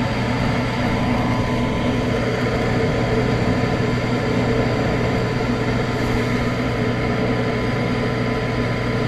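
Gas furnace running: a steady drone of the blower with a low, even hum.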